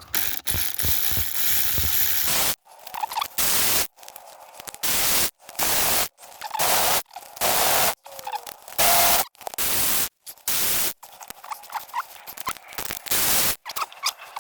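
Hiss of a pressurised jet: one long burst of about two and a half seconds, then about ten short bursts, each cut off sharply.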